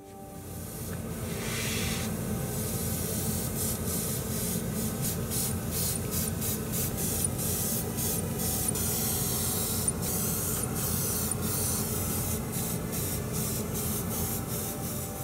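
Airbrush spraying a matte clear coat: a steady hiss of air and atomised paint that builds up over the first couple of seconds, with a low rumble underneath.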